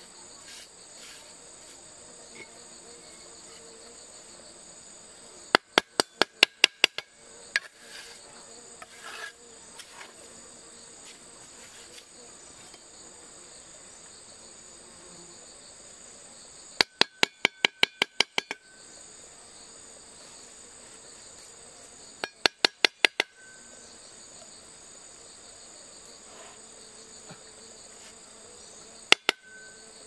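A steady, high-pitched chorus of insects, broken four times by short runs of rapid, sharp knocks, about five a second. The longest run lasts about a second and a half, and the last is just two knocks near the end.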